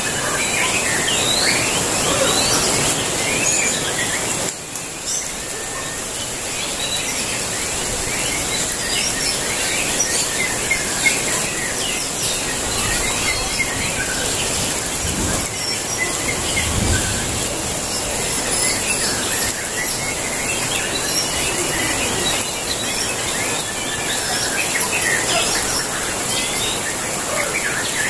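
Several caged white-rumped shamas singing against each other at once: a dense, unbroken run of quick whistled phrases and chirps, over a steady high hiss.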